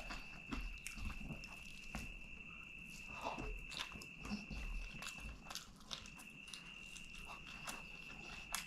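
Close-up eating sounds of rice and curry eaten by hand: fingers squishing and mixing rice on a banana leaf, then a mouthful being chewed, with many short wet clicks. A steady high whine runs underneath, breaking off briefly about six seconds in.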